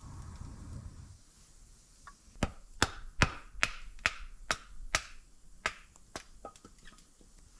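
Firewood being chopped: a run of about ten sharp woody knocks, roughly two a second, starting a couple of seconds in and dying away near the end. A brief low rush of air comes just before them.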